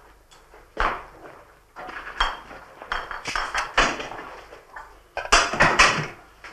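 Glass bottles clinking and knocking as they are handled and set down, in an irregular run of sharp clatters, busiest near the end.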